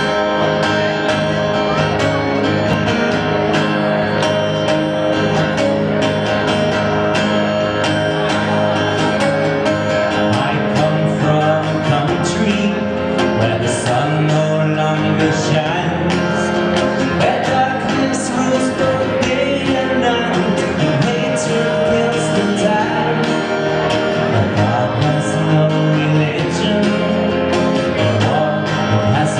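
Live acoustic guitar strumming with a man singing into a microphone.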